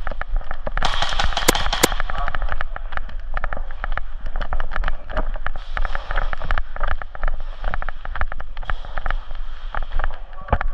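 Airsoft guns firing: many sharp shots in quick runs and scattered single pops, with BBs cracking against hard surfaces.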